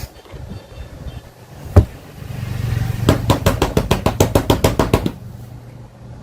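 A faulty 14.6 V LiFePO4 battery charger on mains power, with no output voltage: one sharp click, then a low hum with a fast even run of clicks, about ten a second for two seconds, the 'tách tách' clicking of the failing charger.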